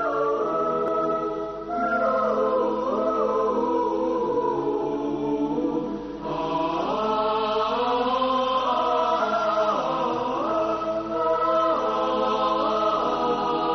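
Young girls singing a song over instrumental accompaniment.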